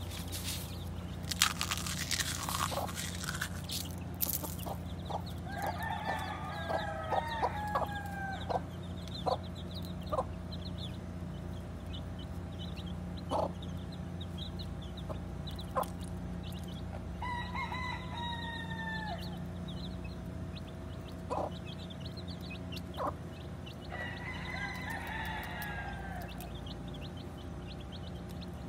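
Mother hen and her young chicks calling: the chicks peep repeatedly, and there are three bursts of louder, falling calls about six, seventeen and twenty-four seconds in. The hen clucks among them.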